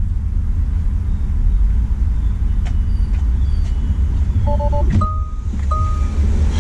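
Low steady rumble inside a Tesla Model 3's cabin. About four and a half seconds in comes a short pulsed beep, then a click as the driver's door unlatches and opens, followed by two chime tones.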